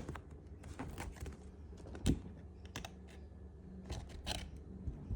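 Typing on a keyboard: scattered, irregular light key clicks, with one louder knock about two seconds in.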